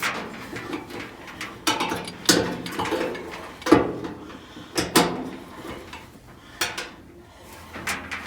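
Clunks, knocks and scrapes of sheet metal as an electric dryer's drum is handled and fitted back into the cabinet, about half a dozen separate knocks with rubbing between.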